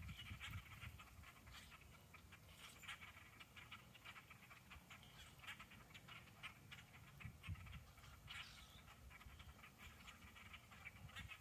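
A large flock of birds perched in bare treetops, calling together: a faint, continuous chatter of many overlapping short calls.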